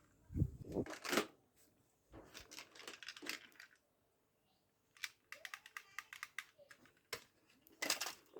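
Plastic toy vehicles being handled and moved about by hand: scattered clicks, knocks and short rustles, with a quick run of small clicks a little past the middle.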